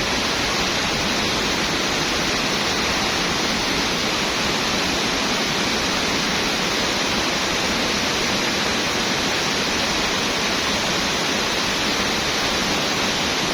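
Aliwagwag Falls, a waterfall, rushing in a steady, unbroken roar of falling water.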